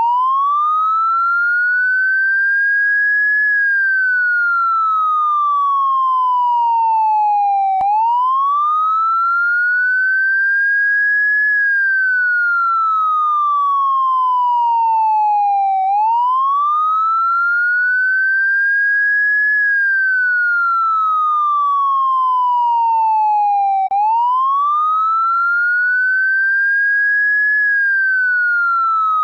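Police car siren sounding a slow wail: the pitch climbs over about three seconds, then falls steadily for about four. The cycle repeats about every eight seconds, nearly four times.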